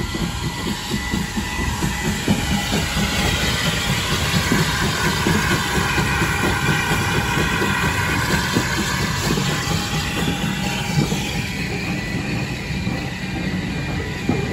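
Saddle-tank steam locomotive and its coaches rolling across a road level crossing: wheels knocking and clattering over the rail joints, with a wheel squeal that rises and falls in pitch through the middle.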